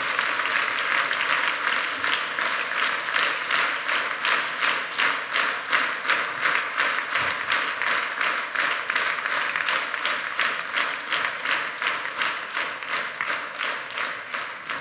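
Audience applauding. About two seconds in, the clapping falls into a steady rhythm in unison, roughly three claps a second, and it eases off near the end.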